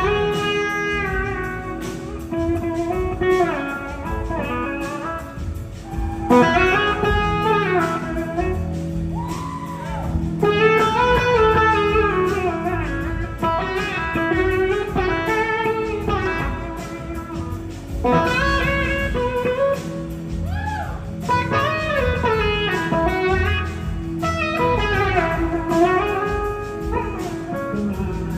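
Electric slide guitar on a Gibson SG playing a lead solo, its notes gliding and bending up and down in phrases over the band's low backing.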